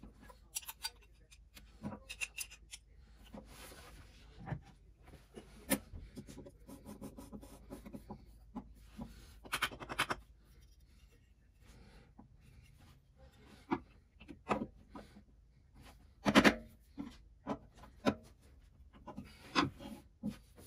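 Metal parts of a small block plane being handled and reassembled: irregular clicks, scrapes and clinks as the blade and lever cap are fitted and a screwdriver works a screw on the plane. A louder knock about three-quarters through, with lighter taps of tools and plane on the workbench.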